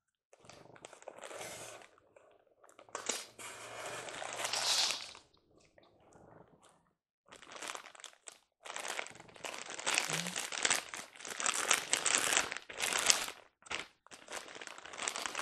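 Clear plastic bag crinkling and rustling as it is handled, in bursts: a first spell with yellow packing tape pulled off, a short lull, then denser, louder crinkling as the bagged item is lifted and turned in the hands.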